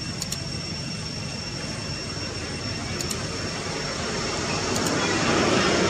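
Steady background noise with a low rumble, growing louder over the last second or so, and a thin steady high-pitched whine held above it; a few faint ticks.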